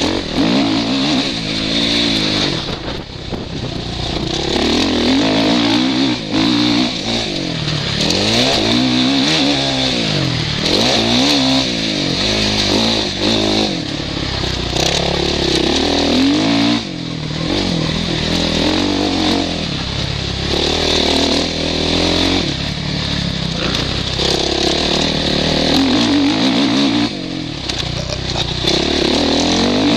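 Suzuki RM-Z450 single-cylinder four-stroke motocross engine, heard from a helmet camera, revving up and dropping back over and over as the bike is ridden hard around a dirt track through shifts and corners.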